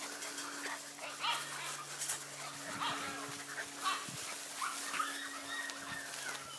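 Goldendoodle puppies yipping and whimpering while they play, short high-pitched cries coming every second or so over a steady low hum.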